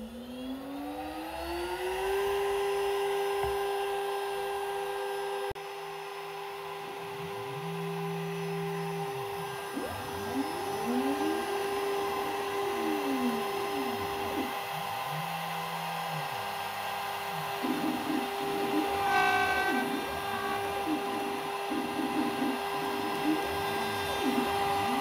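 Spindle motor of a DIY CNC router spinning up, a rising whine that settles into a steady high hum about two seconds in. Over it the stepper motors drive the axes, with repeated whirs that rise and fall in pitch as the moves speed up and slow down, and short steady hums between them.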